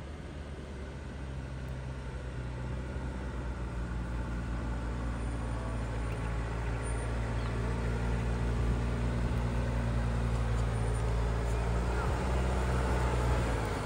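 Land Rover Defender's engine running steadily under load as it crawls up a rutted sand track, growing louder as it comes closer.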